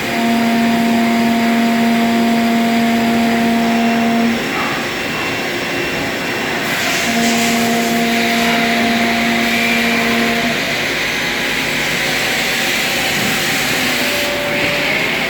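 Machine running with a steady noise, plus a motor hum that holds for about four seconds, stops, and comes back for about three and a half seconds.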